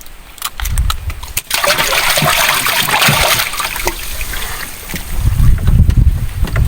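Water splashing for a couple of seconds, with clicks and low rumbling before and after it.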